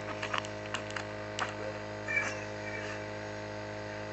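Steady electrical hum, with a few faint clicks in the first second and a half.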